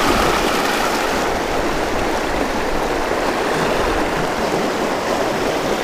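Shallow, fast river running over stony riffles and small rapids: a steady rush of moving water.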